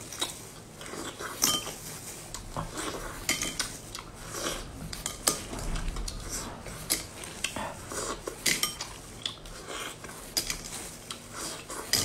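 Cooked clam shells clicking and clinking against one another as clams are picked out of a heaped bowl and eaten; irregular sharp clicks, about two a second.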